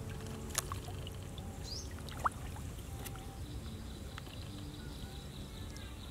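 Shallow water trickling and sloshing softly as hands feel around inside a bamboo plunge basket pressed into a flooded field, with a couple of sharp clicks about half a second and two seconds in.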